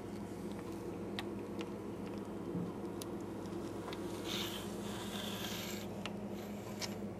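Steady low hum with a few faint clicks scattered through it. A brief scratchy rustle comes about four seconds in and lasts about a second and a half.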